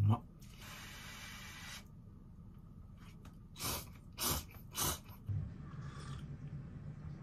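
Noodles in soup being slurped from a bowl: a longer breathy draw near the start, then three short, quick slurps about half a second apart a little past halfway through.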